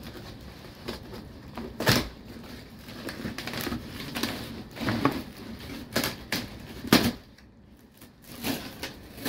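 Cardboard shipping box being opened by hand: flaps pulled back and torn, with crinkling plastic wrap and a few sharp knocks, the loudest about two and seven seconds in.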